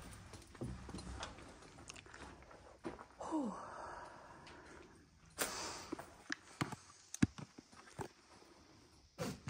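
Footsteps crunching over debris on a littered floor, with scattered clicks and knocks. A brief sound falls in pitch about three seconds in.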